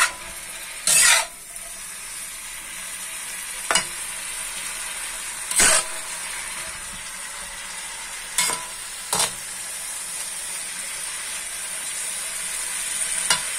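Bean sprouts and tofu sizzling steadily in a wok as they are stir-fried, nearly cooked. A spatula scrapes and knocks against the pan about six times, the longest stroke about a second in.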